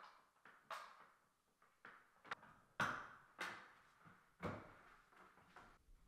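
Plastic clicks and knocks as mains plugs are pushed into white Wi-Fi smart plugs and the plugs are handled: about ten separate sharp knocks, the loudest around the middle.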